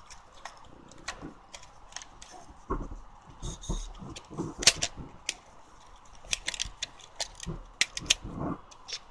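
Irregular plastic clicks, knocks and handling rustle as a 35mm film cartridge is fitted into the open back of a Kyocera Samurai Z2 film camera, with two sharper clicks about halfway and near the end.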